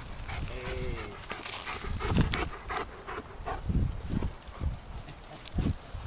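A dog gives a short whine about half a second in, then pants and scuffles with irregular short breathy and rustling noises, as after hard running.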